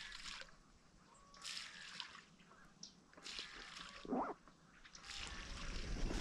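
Light water sloshing and dripping in short intermittent splashes, with one brief pitched call about four seconds in.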